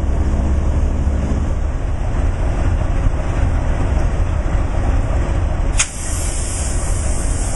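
Norfolk Southern diesel-electric locomotive idling with a steady low rumble. Near the end there is a sharp click, after which a steady hiss is louder.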